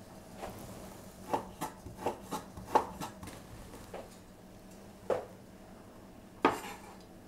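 Chinese cleaver chopping pork belly on a wooden cutting board: a quick run of uneven knocks over the first few seconds, then single chops about five seconds in and near six and a half seconds, the last the loudest.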